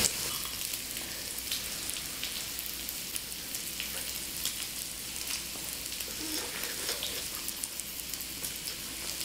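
Thin slices of pork belly and mushrooms sizzling in a small hot pan: a steady frying hiss dotted with fine crackling pops of fat.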